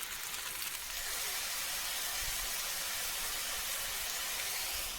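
Chopped mushrooms frying in a hot pan, a steady sizzle that grows a little louder about a second in.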